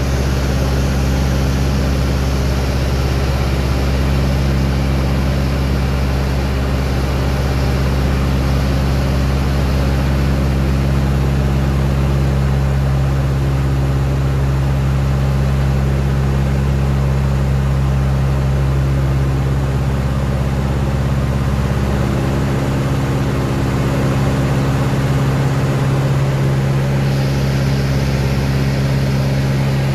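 Beechcraft 18's twin piston engines running steadily in cruise flight, heard from inside the cockpit as a loud, even, low drone.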